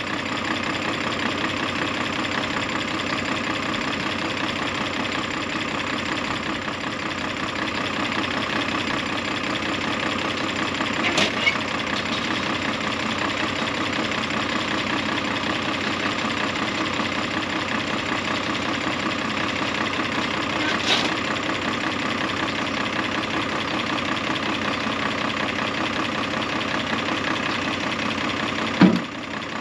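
Tractor engine running steadily. A couple of light clicks come through about a third and two-thirds of the way in, and a sharp knock sounds just before the end.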